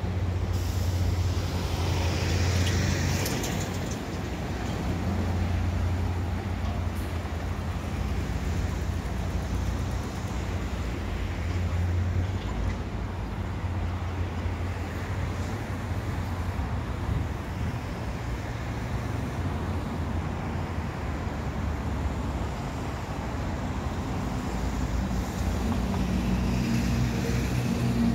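City road traffic: cars and other vehicles running past on a multi-lane street, a steady rumble. Near the end a truck's engine grows louder close by.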